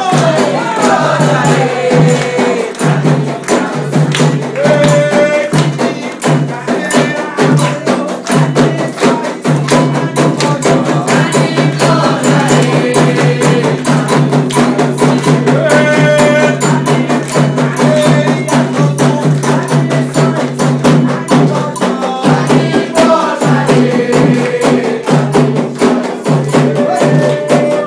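Candomblé chant for the orixás: voices singing repeated phrases over percussion that keeps a fast, steady beat.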